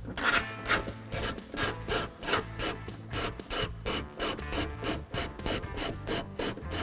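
Ratchet turning a T25 Torx bit to loosen the captured screw behind an exterior car door handle: quick rasping strokes, about three a second.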